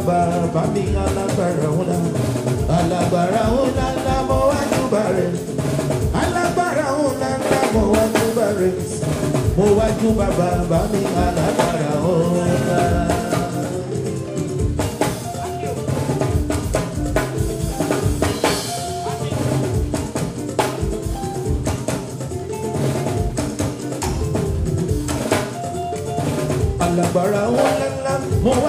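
Live Nigerian party band music: a drum kit with snare, rimshots and bass drum keeps a steady beat under keyboards, with a man singing into a microphone over the top.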